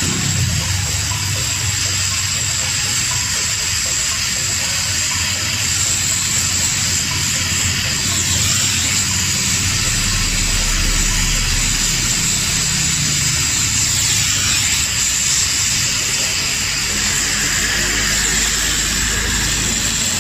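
LPG gas welding torch flame hissing steadily while aluminium filler rod is melted into a cracked cast aluminium engine part, with a low hum underneath.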